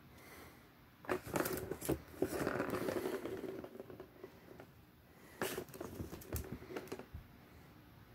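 Plastic ball rolling and rattling around the track of a circular ball-track cat toy as a kitten bats at it, with a sustained rolling rumble and clicks from about one to three and a half seconds in, and a second cluster of knocks and clicks a couple of seconds later.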